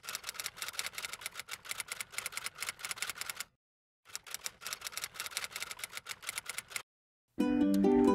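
Typewriter keys clicking in two rapid runs, with a short pause between them, then stopping. Music with steady pitched notes begins near the end.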